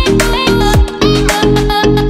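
Background music: an upbeat instrumental track with a steady beat and deep drum hits that drop in pitch.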